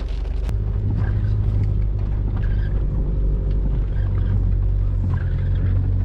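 Car engine running with a steady low rumble, heard from inside the car.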